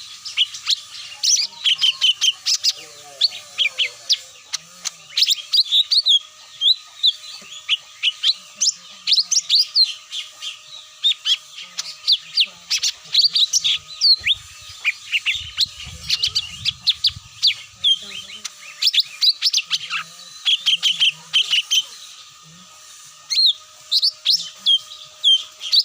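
Cucak mini birds chirping and twittering in quick, dense, high-pitched runs, used as a trapping lure call to draw wild birds down. The calls pause briefly a few seconds before the end.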